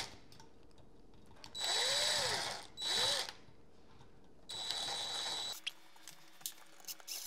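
Cordless drill-driver running in three short bursts, its motor speeding up and slowing with each trigger pull, as it backs out the screws that hold a wall switch in its electrical box. A few light handling clicks near the end.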